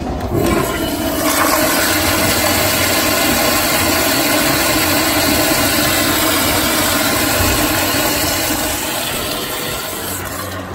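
Commercial flushometer toilet flushing: a loud rush of water that starts suddenly as the valve opens, runs steadily, then eases off near the end as the bowl refills.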